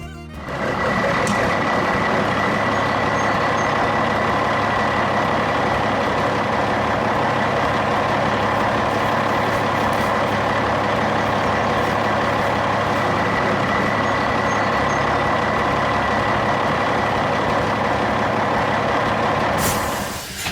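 Heavy truck engine running steadily, with a faint high whine over it, coming in about a second in and fading out near the end.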